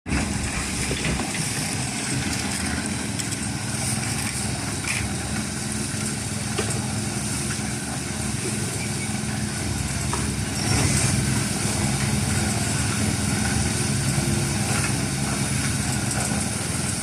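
Small petrol engine of a concrete vibrator running steadily during a concrete pour, with a few faint knocks over it.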